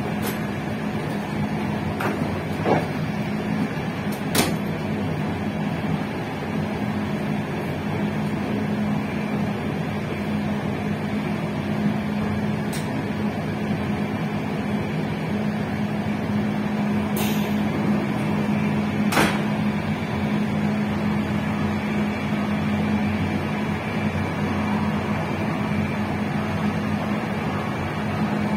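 Passenger train running along the line, heard from on board: a steady hum over continuous running noise, with a few sharp clicks from the track.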